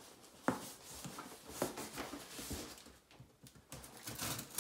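A cardboard shipping box being opened with scissors: scattered clicks and knocks with scratchy scraping of cardboard and packing tape, a brief lull a little after three seconds in.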